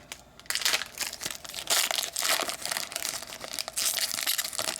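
Trading card pack wrapper crinkling and tearing as the pack is opened by hand, in several spells of rustling.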